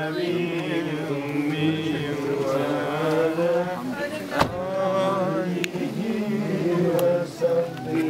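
Many men's voices chanting together, with a sharp knock about four and a half seconds in.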